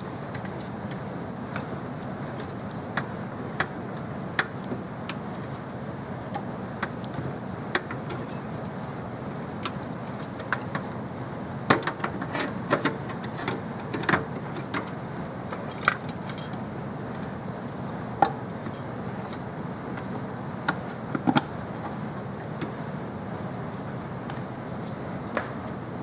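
Irregular light clicks and taps of computer hardware being handled, over a steady hiss, with a busier run of sharper clicks about halfway through.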